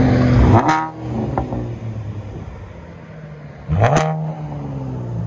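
2014 Chevy Camaro's 3.6-litre V6 through a straight-piped true dual exhaust with an X-pipe and no resonators or mufflers, loud. A held rev drops off sharply just under a second in and settles to idle, then a quick throttle blip near four seconds rises and falls back.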